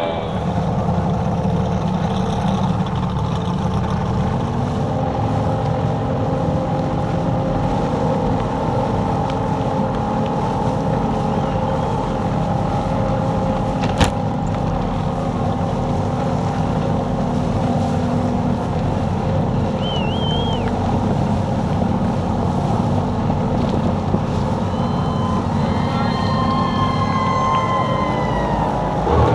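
A Formula 1 tunnel boat's outboard racing engine, heard onboard: it eases off from racing speed a second or two in, then runs steadily at low speed with water rushing past. A single sharp click comes about halfway through.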